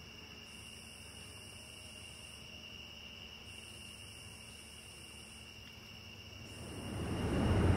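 Crickets chirping: a quiet, steady high trill, with its highest part pulsing on and off every second or two. About a second before the end, a low rushing noise swells up and keeps getting louder.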